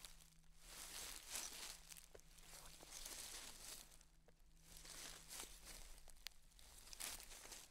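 Faint crunching footsteps on a trail, coming in uneven swells with a few small clicks, over a faint low steady hum.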